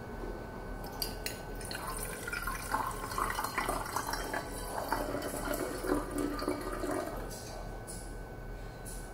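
Cold water being poured from a cup into a narrow-necked bottle, trickling and splashing for about five seconds from two seconds in.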